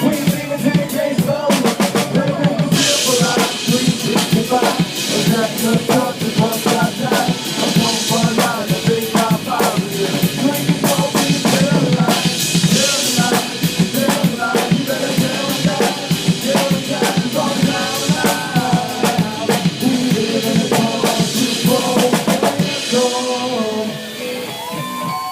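Loud live band music driven by a drum kit, with kick, snare and rimshot hits over a steady beat.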